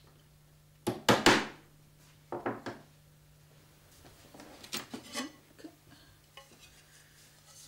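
Glass pieces and metal tools knocking and clinking on a workbench as stained glass is fitted into lead came. There are a few sharp knocks about a second in, a couple more just after two seconds, then lighter clinks.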